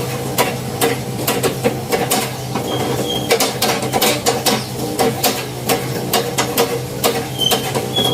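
Sewing machine being driven by foot on its pedal, its mechanism clicking and clattering irregularly over a steady low hum, with a couple of brief high squeaks.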